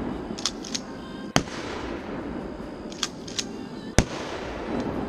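Pump-action shotgun firing dragon's breath shells: two loud shots about two and a half seconds apart. A second or so after each shot comes a quick pair of sharp clacks, the pump being racked to chamber the next shell.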